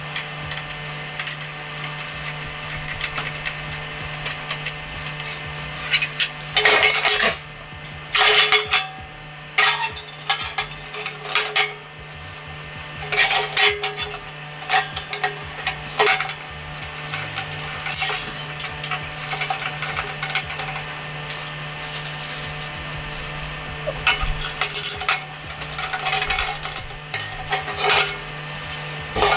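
Thin steel parts of a cheap kettle barbecue clattering and rattling as it is assembled, with small metal fittings clinking, in irregular bursts. A steady low hum runs underneath.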